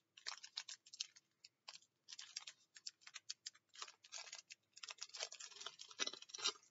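Foil trading-card pack crinkling in gloved hands as it is handled and opened: a faint run of irregular crackles and light clicks.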